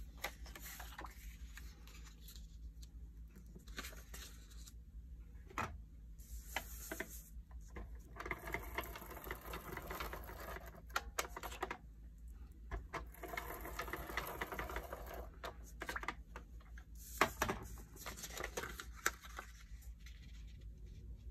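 Handheld adhesive tape runner rolled across the back of scrapbook paper in two strokes of about two seconds each, a fine rapid clicking rattle, the first about eight seconds in and the second about five seconds later. Paper is slid and tapped into place around them.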